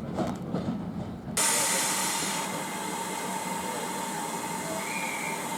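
Low rumble of a train running, then about a second in a steam locomotive's steady hiss of escaping steam starts abruptly and holds.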